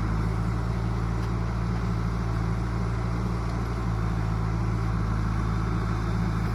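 Large diesel engine running steadily at a constant speed, with a deep, even low hum.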